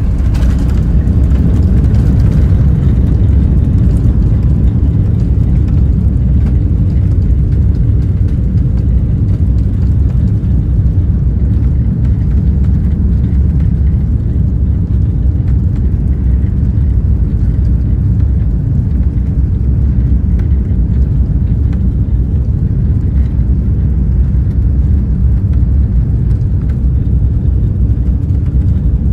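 Steady low rumble inside the cabin of an Airbus A380 rolling along the ground after landing, engine and rolling noise heard from a window seat over the wing.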